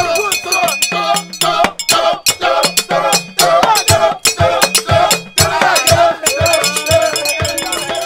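A group of men singing a lively church chorus together, with brass handbells ringing and hand percussion beating out a steady, fast rhythm.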